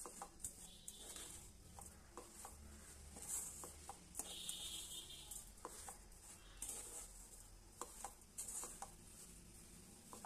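Wooden spatula stirring and scraping a thick semolina, sugar and pineapple mixture in a steel pan, with irregular soft knocks and scrapes against the metal.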